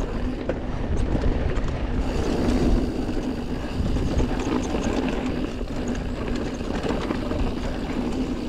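Commencal Meta TR full-suspension 29er mountain bike rolling fast down a rocky dirt singletrack: a steady rumble of tyres over dirt and rocks, with small scattered rattles and clicks from the bike.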